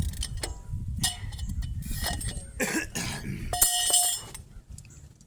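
A man coughs about two and a half seconds in, over a low rumble and the clicks of hand tools. About a second later there is a short metallic clatter that rings briefly.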